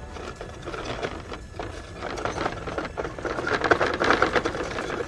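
Traxxas Stampede RC monster truck driving over gravel with a boat trailer in tow: the motor's whine mixed with a dense rattle of tyres and trailer on the stones. It gets louder about two seconds in as the truck comes closer.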